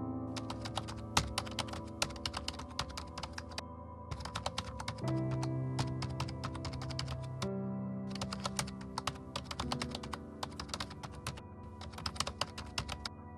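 Rapid keyboard-typing clicks in several runs with brief pauses between them, a sound effect laid over slow ambient music with held chords.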